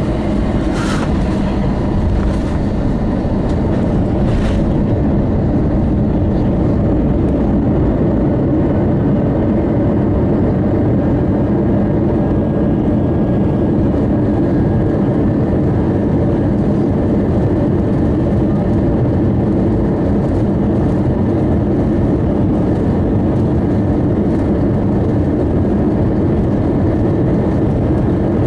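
Steady cabin noise of an Airbus A321 rolling along the runway after landing: the engines running and the rumble of the roll. Two short knocks come about one and four and a half seconds in.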